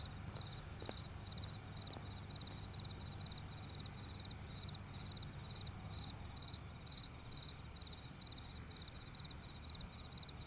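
A cricket chirping steadily at night, a little over two short chirps a second, over a low steady hum. There are a couple of faint footsteps in the first two seconds.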